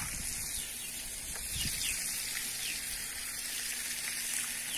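Flour-coated fish pieces sizzling steadily as they fry in hot fat in a frying pan over a wood fire.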